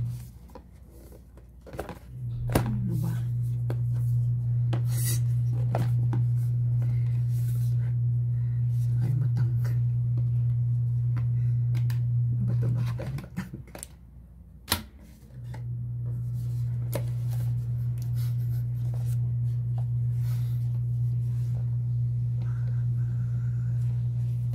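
A steady low hum that cuts out twice for a second or two, with clicks, scrapes and a couple of sharp knocks from a cardboard tablet box being handled and its seal slit open.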